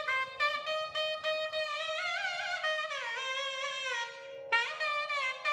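Instrumental background music: a melody with sliding, bending notes over a steady held drone tone, dipping briefly about four seconds in before the melody resumes.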